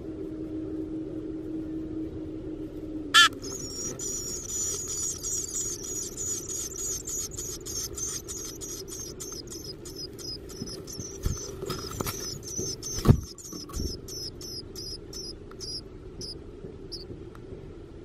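Black-capped chickadee nestlings begging for food from a parent: rapid high-pitched chips, about five a second, starting after a sharp knock about three seconds in and thinning out near the end. A few louder knocks come in the middle.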